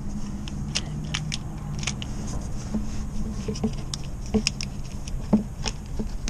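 Scattered light clicks and small knocks of metal and plastic as a lugged cable is handled and fitted onto an alternator's battery terminal, over a low steady hum.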